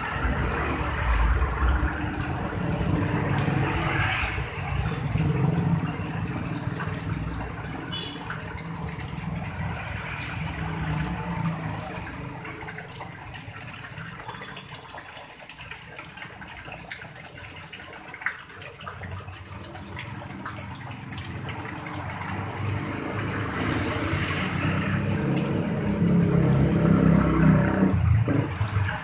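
Water from small waterfalls and a dolphin-statue fountain spout splashing steadily into a garden fish pond. A low engine-like hum runs underneath, louder in the first part and again near the end.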